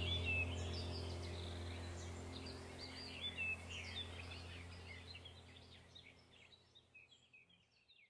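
Many birds chirping with quick high calls over a low steady hum, the whole sound fading out steadily toward silence near the end.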